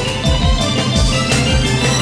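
Television show theme music over an animated title card: held chords with a bass drum beating about twice a second.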